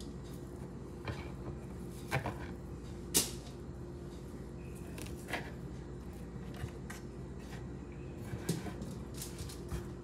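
A knife cutting sausage into chunks on a wooden cutting board: scattered knocks and taps of the blade on the board, the sharpest about three seconds in, over a faint steady hum.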